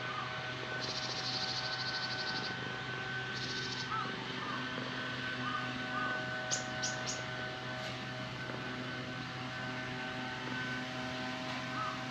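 Outdoor ambience: a steady low hum with faint bird calls, including three quick high chirps about halfway through.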